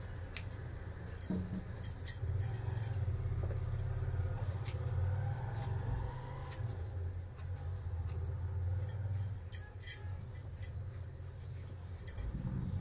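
Hair-cutting scissors snipping through long hair in a run of irregular, crisp cuts, over a steady low hum.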